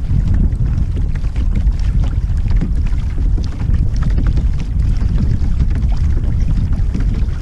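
Strong wind buffeting the microphone as a steady low rumble, with small splashes of wind-driven chop slapping against the hull of a Hobie Outback pedal kayak moving into the wind.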